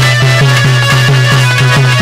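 Instrumental passage of Indian devotional music: held melodic tones over a steady, fast hand-drum rhythm of about five or six strokes a second, each stroke with a falling pitch.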